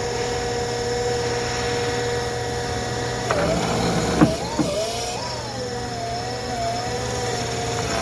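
Electric reach truck's hydraulic steering running while the steering is turned: a steady whine that begins to waver up and down in pitch a little over three seconds in as the load changes. It is a test of a newly replaced steer-motor hose, with a few sharp clicks in the middle, the loudest about four seconds in.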